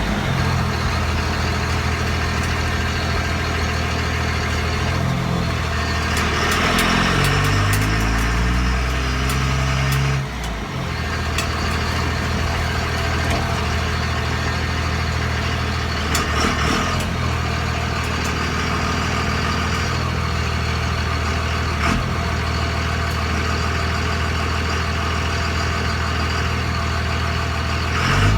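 2001 Ram 2500's 5.9-litre 24-valve Cummins diesel running steadily. Between about five and ten seconds in, the engine speed climbs, then drops suddenly, and it settles back to a steady run.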